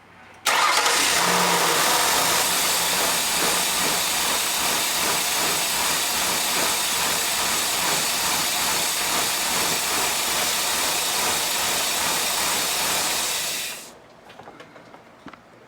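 Ford Duratec 3.0 L DOHC V6 running at idle, steady for about thirteen seconds before it stops. This is the bad idle the owner puts down to a collapsed PCV-valve-to-intake-manifold vacuum hose.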